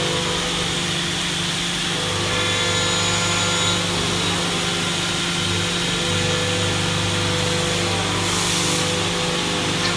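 CNC milling machine running, its high-speed spindle cutting a mold part with a steady machining whine over a constant hum; a short hiss comes about eight seconds in.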